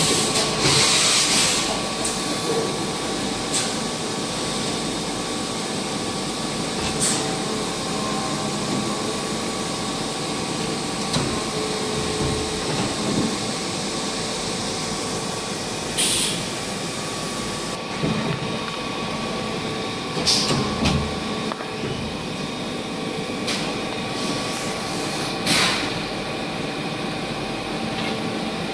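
Matsuura H.Plus-405 horizontal machining center running through a pallet change: a steady machine hum with a few fixed tones, and several short hissing bursts spread through it.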